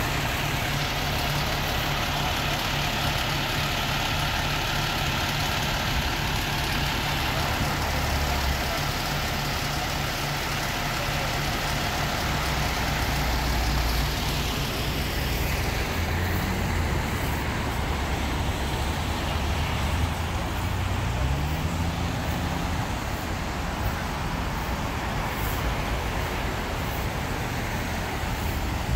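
Fire engine's diesel engine running steadily, a low hum with a rise in pitch a little over two-thirds of the way through.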